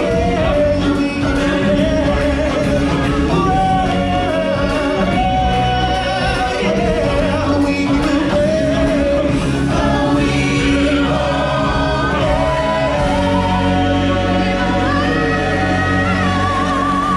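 Live musical-show song: a choir of singers over a full backing track, with long sustained notes rising higher near the end.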